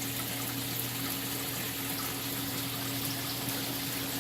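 Saltwater aquarium's circulating water trickling and splashing steadily, with a steady low hum from the tank's pump.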